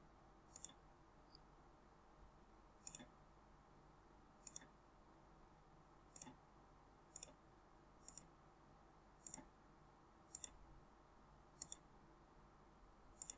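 Computer mouse button clicking about ten times, one click every one to two seconds, several heard as a quick double click. Between the clicks there is only faint room tone.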